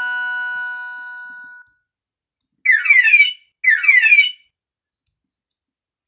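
Alcatel s'pop phone's speaker playing alarm-tone previews. A sustained chord rings out and fades away over the first second and a half. Then come two short bursts of rapid falling electronic chirps about a second apart.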